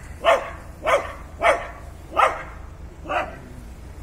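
A dog barking at a cat up on a wall: five sharp barks at an even pace, the last one fainter.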